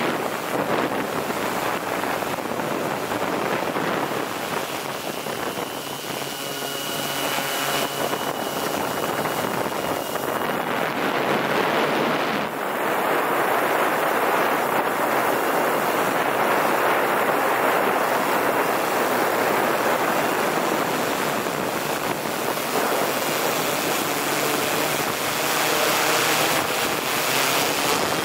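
Multirotor drone's electric motors and propellers running steadily in flight, heard from the camera carried on the drone, mixed with a constant rush of air over the microphone. A faint whining tone comes and goes.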